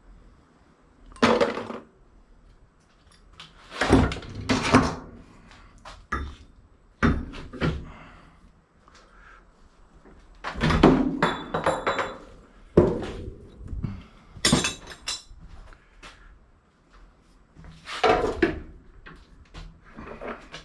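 Pieces of scrap brass and copper clanking as they are tossed one by one into buckets during sorting: about a dozen separate clanks, a few with a short metallic ring.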